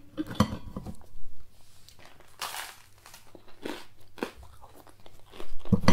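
Grilled toast being bitten and chewed close to the microphone: a string of short, crisp crunches at an uneven pace, the strongest about halfway through.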